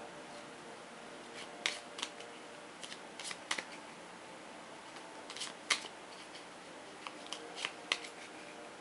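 Stiff board-game cards being shuffled and handled: a dozen or so short, sharp snaps and flicks at irregular intervals.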